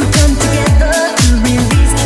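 Electronic dance music with a steady four-on-the-floor kick drum, about two beats a second, offbeat hi-hats and a synth melody.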